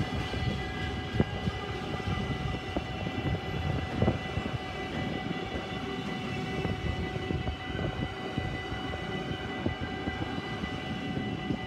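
Freight train of container flat wagons with tank containers rolling past at close range: a steady rumble of wheels on rail, with a few sharp clacks from the wheels over rail joints. A steady high-pitched whine runs over it.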